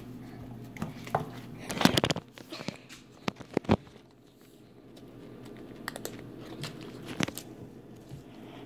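Soft slime squished and kneaded by hand, giving sharp sticky clicks and pops: a cluster about two seconds in, a few more a second later, and scattered quieter ones near the end.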